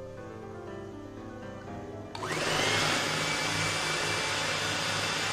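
Background music, then about two seconds in an electric mixer switches on, its whine rising quickly and then running steady at speed as it beats the cake batter.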